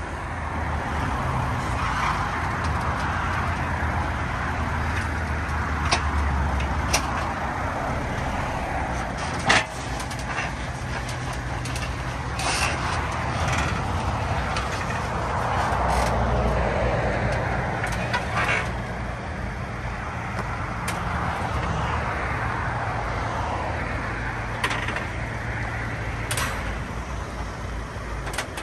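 Car engine running at low revs as the car is driven slowly up metal ramps onto a flatbed tow truck, with several sharp knocks as it rolls onto and along the ramps and bed.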